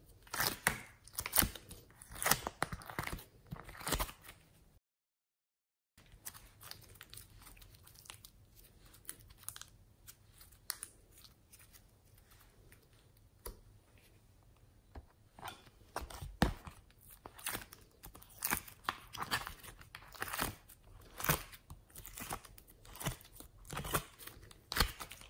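Fluffy slime being pulled out of plastic molds and pressed by hand, giving irregular sticky clicking and crackling. A silent break comes about five seconds in, the middle is sparse and quieter, and the crackling is busy again in the second half.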